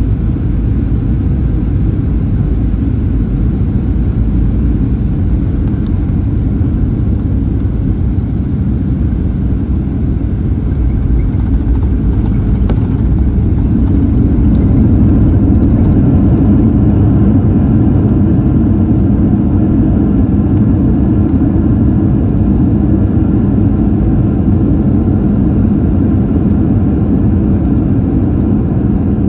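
Steady jet-airliner cabin noise inside a Boeing 737-800: a continuous deep rumble of engines and airflow that grows somewhat louder about halfway through.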